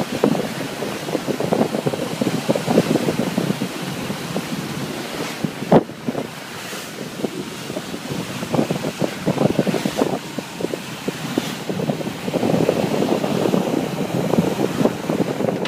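Wind buffeting the microphone on a fast-moving fishing boat, over the rush of the boat's churning wake, in uneven gusts. One sharp knock a little over a third of the way through.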